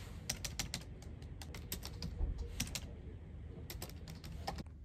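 Typing on a computer keyboard: irregular keystrokes in three short flurries, over a low steady office hum.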